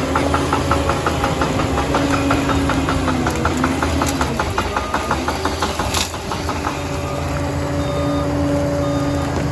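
Liebherr 746 crawler dozer running under load, its engine holding two steady tones with a rapid, even clicking over them for the first two-thirds. A single sharp crack comes about six seconds in. Near the end the reversing alarm starts, short beeps about once a second.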